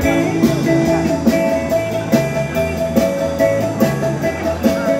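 Live band playing, with held pitched notes over a steady drum beat.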